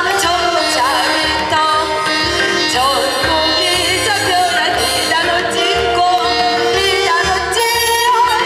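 A woman singing a Korean song through a microphone, her voice wavering with vibrato, over amplified accompaniment with a steady beat.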